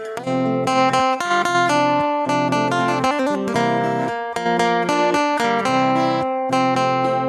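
Background music: guitar playing chords that change about every half second to a second.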